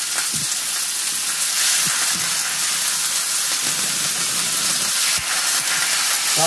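Beef steaks sizzling in a hot cast iron skillet as more steaks are laid in: a steady frying hiss, with a few faint knocks.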